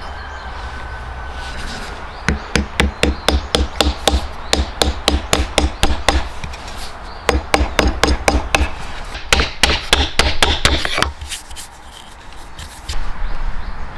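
Quick, even series of light hammer taps on wood, about four a second, starting about two seconds in and stopping a few seconds before the end.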